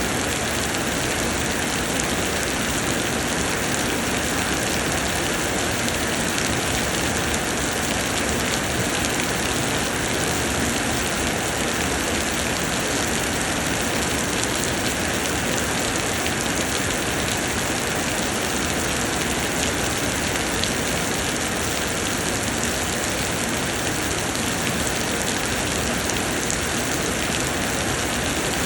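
Steady heavy summer rain pattering on surfaces, an even hiss with many small drop impacts.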